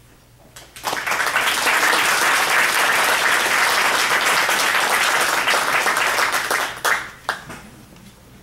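Dinner-theatre audience applauding: the clapping starts suddenly about a second in, holds steady for about six seconds, then dies away with a few last scattered claps.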